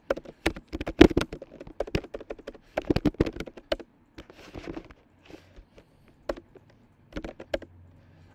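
Typing on a computer keyboard: quick runs of keystrokes for about the first four seconds, then a few scattered keystrokes and a short flurry near the end.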